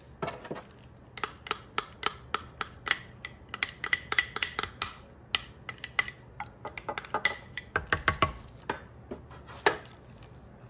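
Irregular light clicks and clinks of a metal spoon tapping and scraping against a stainless steel mixing bowl, in quick clusters through the middle.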